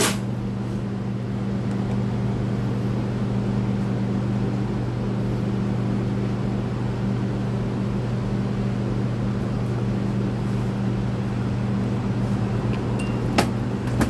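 Electric shop fans running with a steady low hum. A sharp click at the very start and another near the end.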